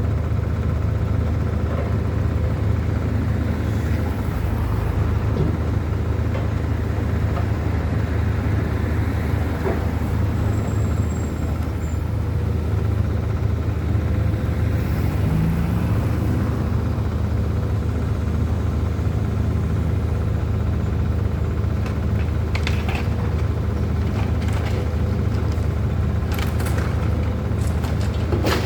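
An engine running steadily at a constant low rumble, with a few sharp knocks near the end.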